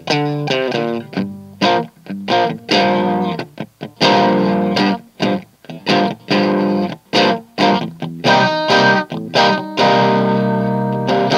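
Fender Stratocaster played through an Audio Baron TG-30 30-watt guitar amp on its crunch mode at light gain. It plays choppy strummed chords and riffs with short stops, and several chords are left to ring.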